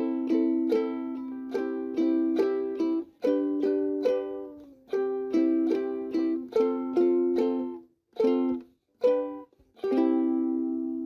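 Background music: a plucked string instrument, ukulele-like, strums chords in a steady rhythm, with a few short breaks a little after eight seconds in.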